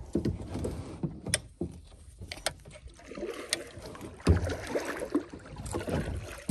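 Scattered knocks, clicks and scrapes on a kayak, with a heavier thump about four seconds in, as the boat is worked free of overhanging bushes.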